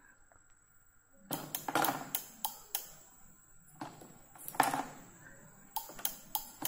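Irregular sharp clicks and taps, about three or four a second, from push-button switches being pressed on a PLC trainer board, starting about a second in.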